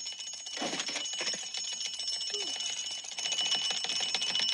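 Mechanical bell alarm clock going off, its hammer rattling rapidly against the bell in a continuous high, shrill ring.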